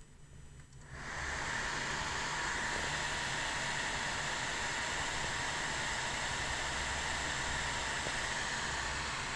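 Laptop cooling fan (the Sunon blower in a Dell Precision M4300) starting about a second in, then running with a steady airy hiss.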